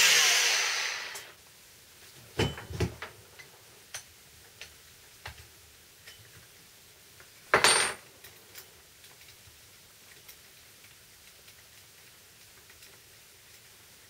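Bosch oscillating multi-tool's motor winding down, its pitch falling as it coasts to a stop in the first second. This is followed by scattered clicks and knocks of the tool and a blade being handled on a wooden workbench, the sharpest about halfway through.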